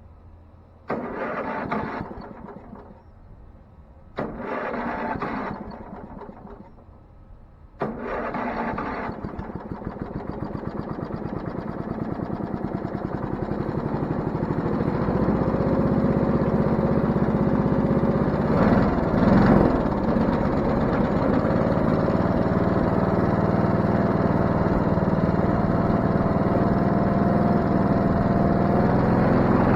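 Wood-Mizer LT20 band sawmill engine being cranked: two short cranks that don't catch, then a third that starts it. It then runs steadily, warming up, with a brief surge about two-thirds of the way through.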